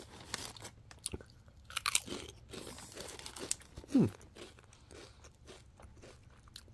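Potato-chip bag crinkling and chips crunching against each other as a hand rummages inside the bag and pulls one out: a scatter of short crackles and crunches. A brief low hum of voice about four seconds in.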